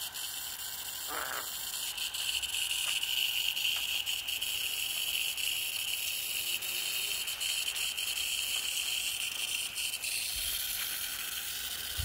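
Steady hiss of a fine water spray misting the leaves of a garden shrub.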